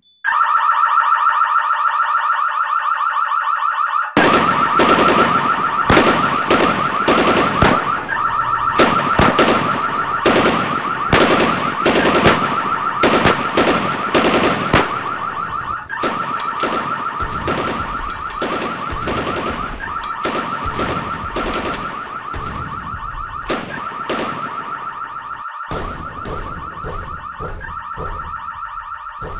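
A loud electronic alarm-like tone, held steady and high, with a string of heavy sharp hits layered over it from about four seconds in. The hits come thick and fast at first and grow sparser toward the end.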